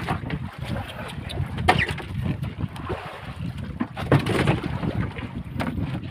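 Fish being dropped by hand into a boat's ice-filled fish hold, landing with thuds about two seconds in and again about four seconds in, over a steady low rumble.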